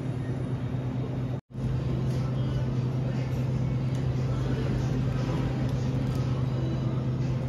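Steady low mechanical hum over a background rumble, cutting out for an instant about one and a half seconds in and then carrying on unchanged.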